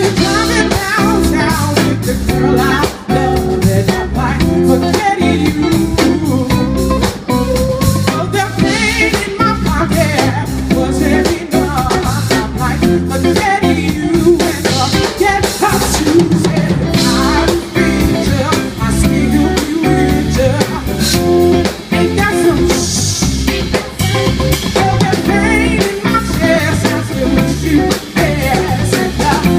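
Live band playing through a stage PA: drum kit, guitar and bass with singing over the top.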